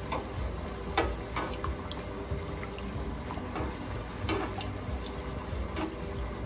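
Water splashing and pouring in a large pot of boiling water as washed jasmine rice goes in, with a few light clicks of a utensil against the pot.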